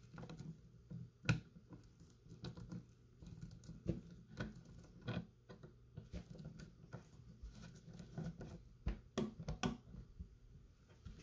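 Screwdriver turning a slotted butt plate screw into the brass butt plate of an SMLE Mk III* rifle: a faint run of irregular small clicks and scrapes of the blade in the slot, with a sharper click about a second in.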